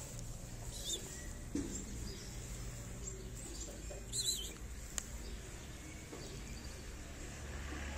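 Two short, high, wavering bird chirps, about a second and about four seconds in, over a steady low hum, with a single sharp click about five seconds in.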